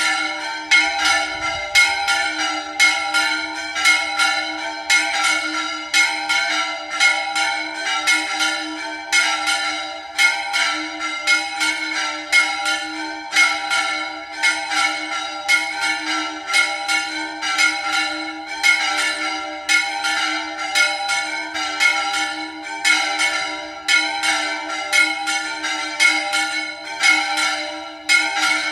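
Three church bells rung in a repique: quick, regular strikes, about two a second, overlapping into one continuous peal with the tones ringing on between strokes.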